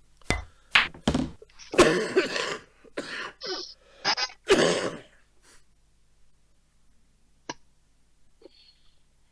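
A run of coughs, several in quick succession over about five seconds, then quiet except for a single sharp click a couple of seconds later.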